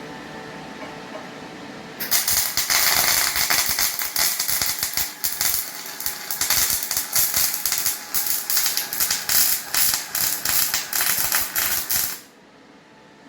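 MAG welding arc crackling and sputtering steadily for about ten seconds, starting about two seconds in and cutting off abruptly near the end, over a steady background hum.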